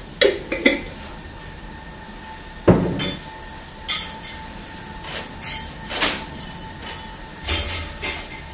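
Kitchen handling clatter of a glass jar and its lid: a few quick clinks near the start, a sharp knock about three seconds in as things are set down on the counter, then lighter knocks and clatters. A faint steady tone runs underneath.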